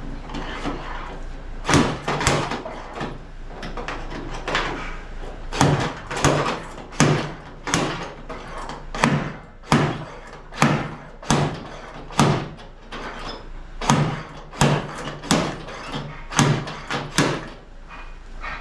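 Slide hammer on a spot-welding dent puller knocking back again and again on a pin welded to a car's steel wheel-arch panel, roughly one to two sharp metallic knocks a second with short pauses, drawing the dent outward.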